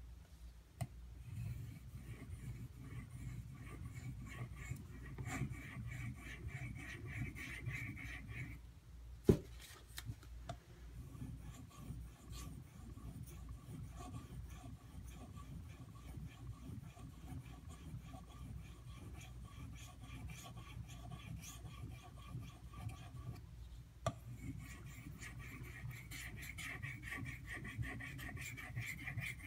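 AUS-8 steel tanto blade of an Ontario Utilitac II rubbing and scraping steadily as it is worked during sharpening, with one sharp click about nine seconds in and a brief break a little past twenty seconds.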